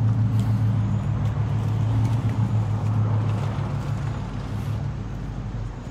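A pickup truck's engine running steadily as it drives off along the street, with tyre noise on the road, slowly fading.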